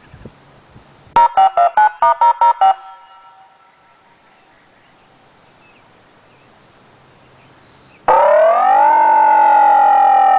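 Outdoor electronic siren speaker array (STORMAlert OmniAlert 1004) playing synthesized Thunderbolt 1003 siren tones. About a second in, a quick run of about eight short beeps alternating between two pitches; then, after a pause, near the end a loud siren wail that rises quickly and then begins slowly falling.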